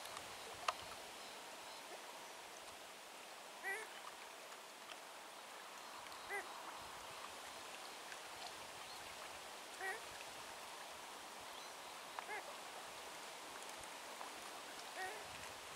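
Ruffed grouse calling: one short call every few seconds over a steady hiss. A single sharp click sounds less than a second in.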